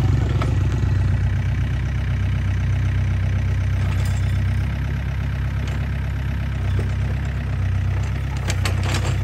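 Hitachi mini excavator's diesel engine running steadily under hydraulic work as the arm and bucket move soil. A few sharp knocks come near the end.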